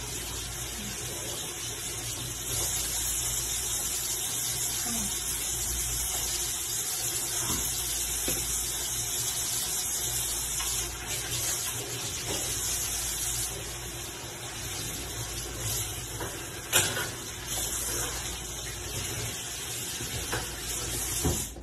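Kitchen tap running into a sink, a steady hiss that gets louder a couple of seconds in and softer past the middle. A single sharp knock about 17 seconds in.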